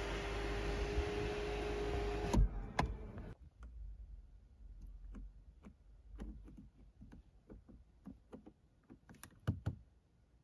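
Electric sunroof motor running as the glass panel slides open: a steady hum that stops with a clunk about two and a half seconds in. Then a run of light, irregular clicks from a BMW iDrive rotary controller being turned and pressed, with a louder cluster near the end.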